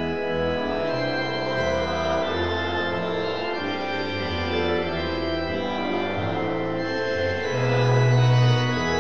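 Church organ playing slow held chords over deep bass pedal notes, swelling louder for about a second near the end.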